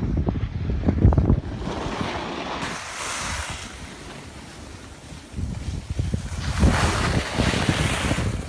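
Wind buffeting the microphone of a camera carried by a skier going downhill, with the hiss of skis sliding and scraping over packed snow. It is strongest at the start and again over the last three seconds, and eases off in the middle.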